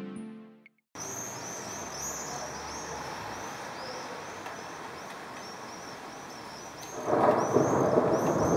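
Background music fades out, then an outdoor storm ambience: a steady hiss with small birds repeatedly giving short high calls. About seven seconds in, a loud rumble of thunder sets in and carries on.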